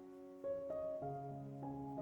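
Soft background piano music, a slow run of sustained notes.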